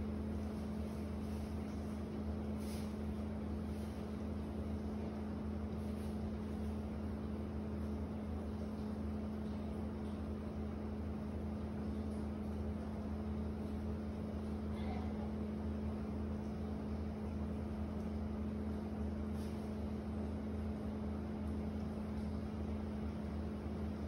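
Steady mechanical hum of apartment-alley ambience: a low drone and a steady pitched tone over an even hiss, with a few faint short ticks.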